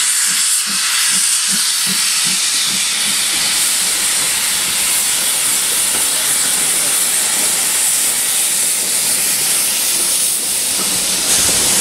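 BR Standard Class 4 2-6-4 tank locomotive 80072 pulling a train away under a cloud of steam: a loud, steady hiss of escaping steam, with slow exhaust beats, about two or three a second, that fade into the hiss after the first few seconds. A lower rumble joins near the end as it passes.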